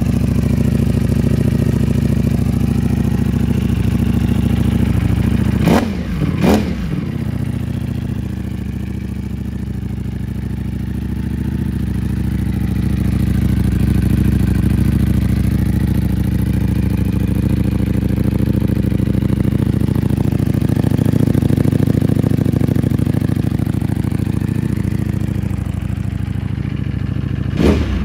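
Ducati Panigale V4 Speciale's V4 engine idling steadily, with two quick blips of the throttle about six seconds in and two more near the end, the revs shooting up and dropping straight back.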